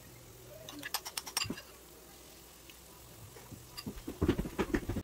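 Flour and onion batter fritters frying in shallow oil in a nonstick pan, a faint steady sizzle with scattered crackles. A few sharp clicks come about a second in, and a cluster of low knocks near the end.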